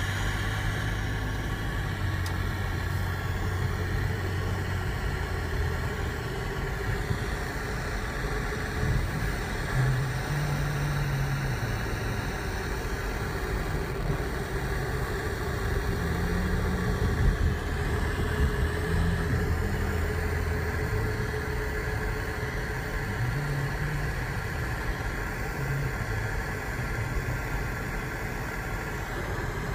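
Car cabin noise while driving: steady engine hum and tyre and road rumble with no sharp events.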